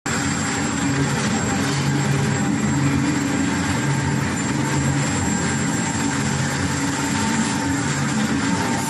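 Woodworking machinery running steadily: a constant mechanical hum with hiss and a thin high whine, with no starts, stops or cuts heard.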